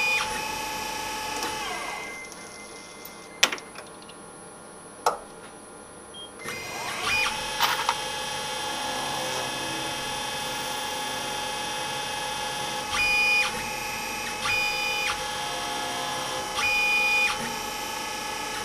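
Dyna Mechtronics DM 4400 CNC mill running: its steady whine winds down about two seconds in, two sharp clicks follow, then it winds back up around seven seconds and runs steadily, with three short, louder higher-pitched passes near the end.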